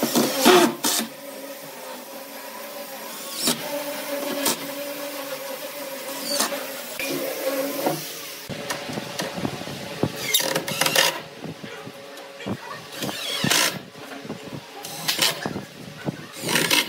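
Woodworking shop tool noise: a small motor hums steadily for the first half, then a run of wooden knocks and several short bursts of tool noise.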